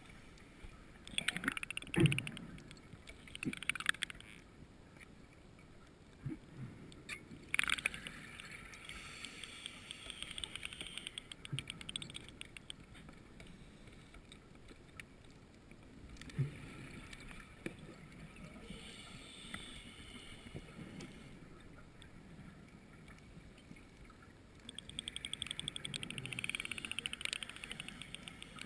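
Scuba divers' exhaled bubbles heard underwater, in several bursts of fizzing and gurgling several seconds apart. A few sharp knocks come in between, the loudest about two seconds in.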